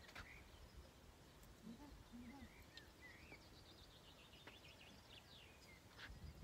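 Near silence with faint small-bird chirps and a short falling trill in the middle, and a soft click near the start.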